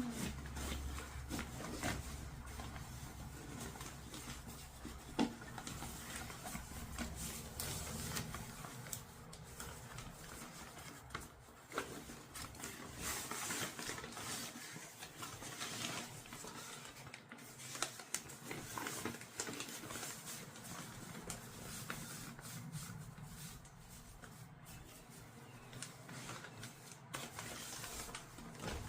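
Hand-working noises of canvas fabric being fitted over a scooter seat: irregular rustling with scattered small clicks and knocks. A low steady hum dies away about eight seconds in.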